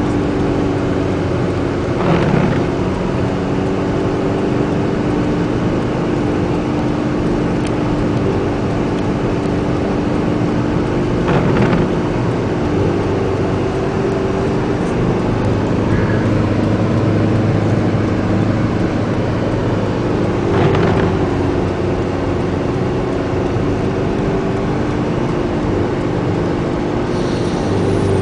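Car being driven through a snowstorm, heard from inside: steady engine hum under constant road and wind noise, with a brief louder swish three times, about nine or ten seconds apart.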